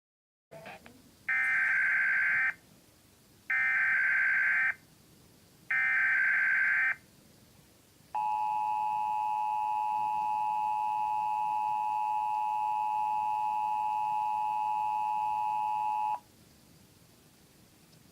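Emergency Alert System broadcast of a Required Monthly Test. It opens with the SAME digital header, three identical screeching data bursts of about a second each, then the two-tone attention signal, a steady dual tone held about eight seconds before it cuts off.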